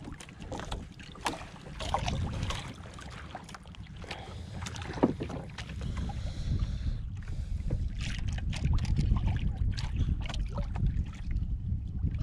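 Wind buffeting the microphone over water slapping around a small outrigger boat, a low rumble that grows stronger about halfway through, with scattered sharp clicks and knocks of gear being handled on board.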